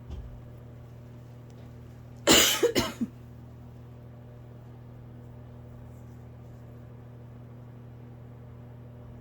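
A person's asthmatic cough: a quick run of about four coughs a little over two seconds in, over a steady low hum.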